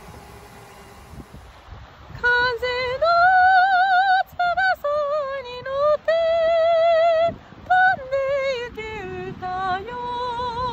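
A woman's voice singing long held notes with a wide vibrato, coming in about two seconds in after a faint background hiss.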